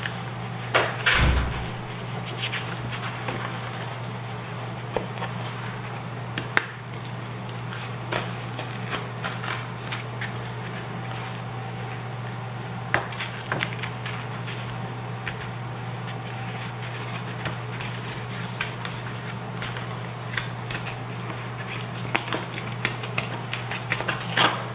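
Sheets of heavy scrapbook paper being handled, slid and pressed flat on a table while one is worked loose from a glued paper pad, giving scattered light taps and rustles with a louder knock about a second in. A steady low hum runs underneath.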